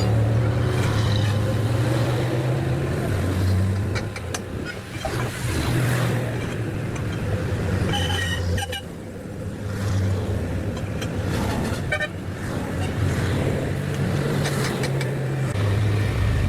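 Vehicle engine running with road traffic, and a short horn toot about eight seconds in.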